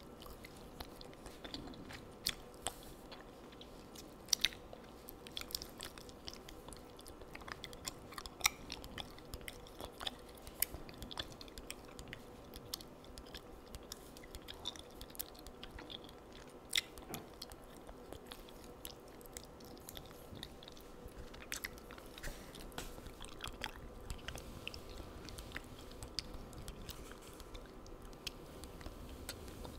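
Chewing gum close to the microphone: irregular wet clicks and smacks. A pen draws on paper near the end.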